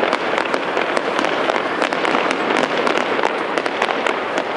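Fireworks going off in quick succession: a dense, steady crackle of many small pops and bangs, with no single big boom standing out.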